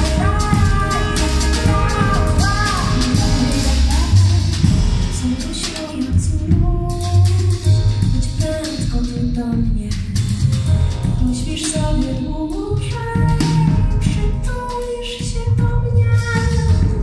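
A woman singing with a small live band of piano, upright double bass and drum kit, with cymbal and drum strokes throughout.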